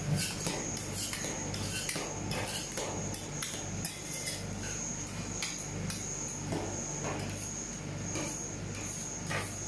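Metal spatulas scraping and tapping on a stainless-steel ice-cream cold plate, chopping and spreading the freezing cream mixture: a run of short, irregular scrapes and clacks over a steady low hum.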